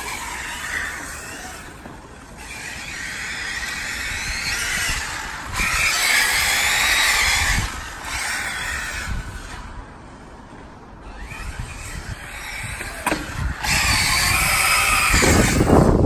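Arrma Typhon radio-controlled car's electric motor and drivetrain whining in repeated bursts, the pitch gliding up and down as the car accelerates and eases off. Wind rumbles on the microphone near the end.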